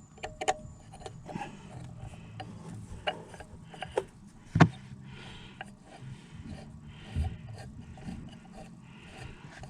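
Small metal clicks and clinks of Allen-head bolts and a hex key being handled and fitted, with one sharper knock about four and a half seconds in.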